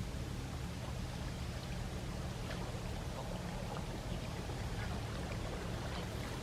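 Sea waves washing and lapping at the shore: a steady wash of water with small scattered splashes and clicks.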